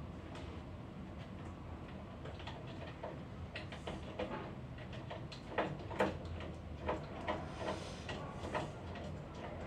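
Irregular clicks, taps and small knocks of plastic and metal parts being handled inside a Lavazza Espresso Point EP 2100 espresso machine's casing while it is being taken apart, with sharper knocks in the second half.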